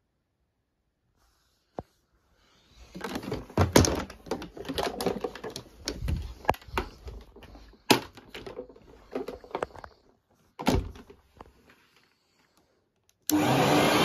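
Knocks, rattles and sharp plastic clicks as a 1990 Numatic Turbovac TVS2 upright vacuum cleaner is handled. About a second before the end its motor switches on suddenly and runs steadily with a low hum.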